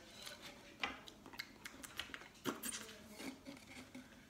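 Faint, irregular clicks and rustles of stacked potato chips shifting against each other and the sides of a cardboard Pringles Wavy can as a hand fishes one out.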